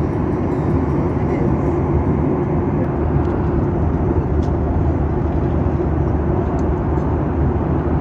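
Steady cabin noise of a Boeing 737-900ER in cruise, heard from a seat by the wing: a deep, even rush of CFM56-7B turbofan engines and airflow over the fuselage.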